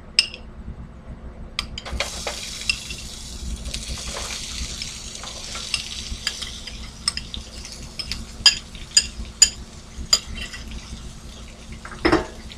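Chopped onions hitting a hot skillet greased with vegetable oil spray and sizzling, the hiss starting about two seconds in and running on with scattered sharp pops and clicks. A louder knock comes near the end.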